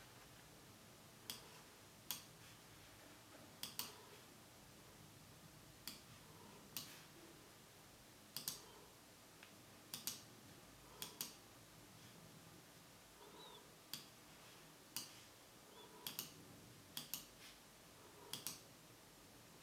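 Sharp, short clicks at irregular intervals over a quiet background, many of them in quick pairs.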